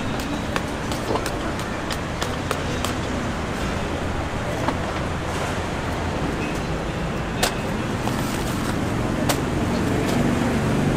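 Steady background noise of traffic and market bustle, with a few sharp clicks and taps from a knife cutting into a giant jackfruit.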